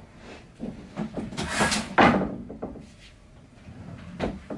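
Clothes being rummaged out of a wooden dresser drawer: cloth rustling, then a loud knock of the drawer shutting about two seconds in, and a lighter knock near the end.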